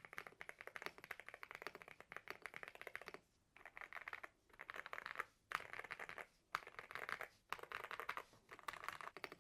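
Typing on a gasket-mounted Akko mechanical keyboard with Akko V3 Piano Pro linear switches and double-shot PBT keycaps: fast, even keystrokes in quick runs, broken by short pauses about once a second from about three seconds in.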